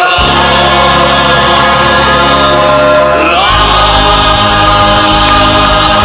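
Ensemble of voices singing long held notes together over an instrumental backing, moving to a new chord about three and a half seconds in.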